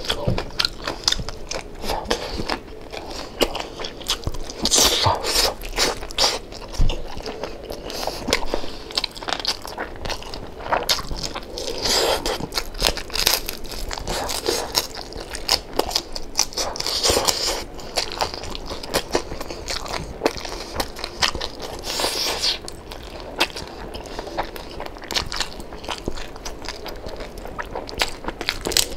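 Someone biting into and chewing crispy deep-fried pork knuckle (crispy pata), close to the microphone: steady crackly crunching, with louder crunches every few seconds.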